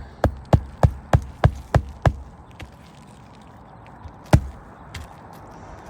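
Hammer driving roofing nails through shingles: a quick run of seven even blows, about three a second, then a single hard blow about four seconds in.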